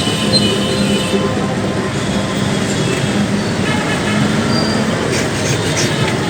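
Steady, loud road traffic: engines and tyres running together, with a few short clicks near the end.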